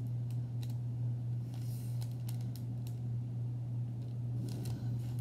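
Knife cutting soft dough on parchment paper: scattered light clicks and scrapes of the blade on the paper, over a steady low hum.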